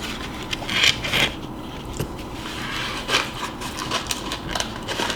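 Close-up eating sounds: chewing and crunching into a deep-fried peach mango pie, with stronger crunchy bursts about a second in and again around three seconds in, among small clicks.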